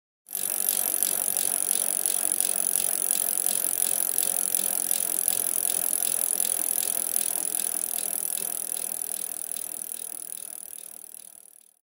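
Mountain-bike rear freehub ticking as the wheel spins freely, its pawls buzzing with a regular pulse a few times a second, fading out near the end.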